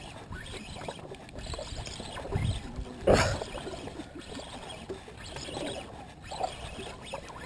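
Sea water lapping and sloshing against the side of a small fishing boat, with one louder rush about three seconds in.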